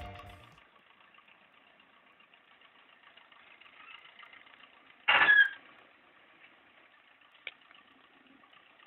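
Background music fading out at the start, then a faint engine running steadily. About five seconds in, a short loud bang cuts in, with a sharp click a couple of seconds later.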